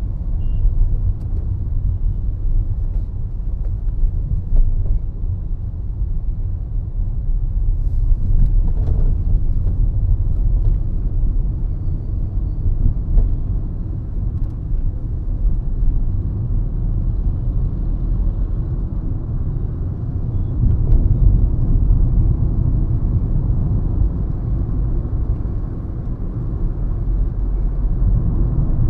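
Low, steady rumble of a Hyundai i20 on the move: engine and tyre road noise heard from inside the cabin, rising and falling a little with the road.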